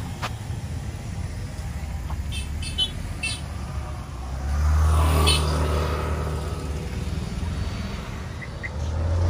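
Road traffic: car engines running as vehicles pass close by, the hum swelling about four and a half seconds in and again near the end. A few short high-pitched chirps sound earlier.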